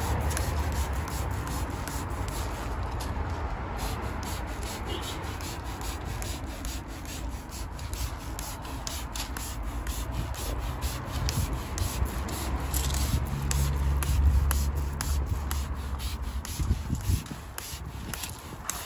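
Hand-held pump pressure sprayer hissing as citrus cleaner is sprayed onto a car's windows and door panels. Short crackles run through it, over a low rumble that swells about two-thirds of the way in.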